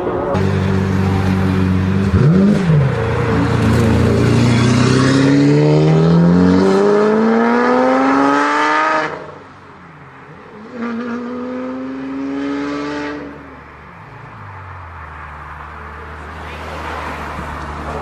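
Car engine accelerating, heard from inside the cabin: the revs climb steadily for about seven seconds, then drop away suddenly as the throttle is lifted. A shorter second pull follows before the engine settles back to a quieter run.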